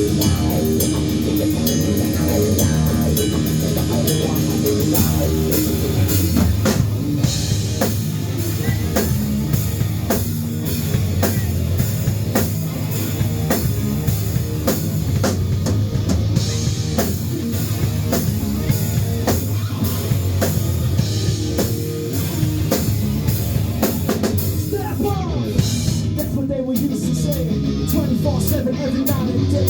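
Rock music with a drum kit and distorted guitar playing, without vocals.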